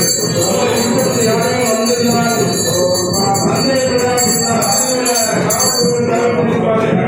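Music with bells jingling continuously through it.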